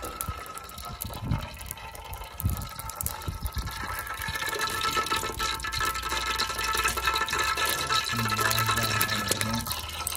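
Cooking oil heating in an aluminium pot over a wood fire: a few knocks of a metal ladle against the pot, then a crackling sizzle that thickens from about four seconds in.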